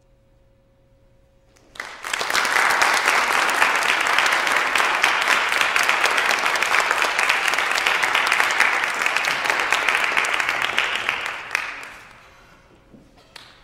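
Audience applause that breaks out suddenly about two seconds in, holds steady as dense clapping, then dies away near the end.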